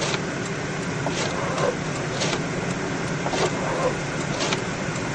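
Inside a moving car: windshield wipers sweeping about once a second over the steady hum of the car driving.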